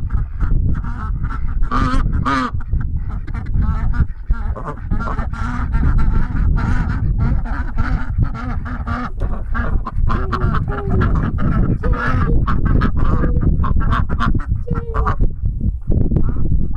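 A flock of farm waterfowl, geese and ducks, honking and quacking in many short, repeated calls, over a steady low rumble.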